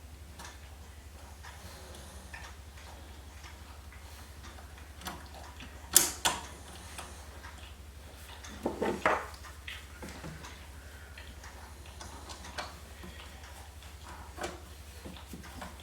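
Scattered clicks and small knocks of a screwdriver and screws working on a computer case, with two sharp clacks about six seconds in and a short clatter around nine seconds, over a steady low hum.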